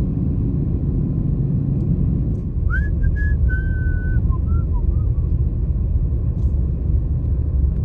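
Steady low rumble of a Jeep driving on a snow-covered road, heard from inside the cab. From about three to five seconds in, a few short whistle-like notes sound: one rising, two held, then a couple falling.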